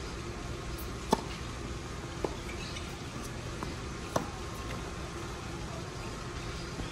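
Tennis rackets hitting the ball during a doubles rally: three sharp pops, the first about a second in, a softer one about a second later, and another about four seconds in.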